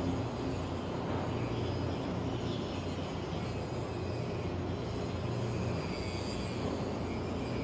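Steady low mechanical drone of heavy machinery running, with an even noisy rumble over it and no distinct knocks or changes.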